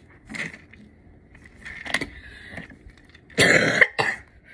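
A person coughing: a few short rough bursts, the loudest lasting about half a second about three and a half seconds in, with a couple of light clicks around it.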